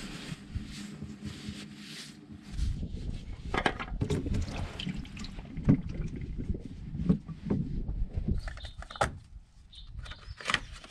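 Engine oil trickling from a loosened spin-on oil filter into a plastic drain pan. After about two and a half seconds, irregular knocks and clatter follow as the filter is handled over the pan.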